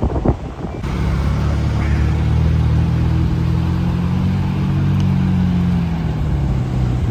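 A car engine running with a steady low drone, its pitch lifting slightly in the middle and easing off near the end. A couple of sharp knocks are heard right at the start.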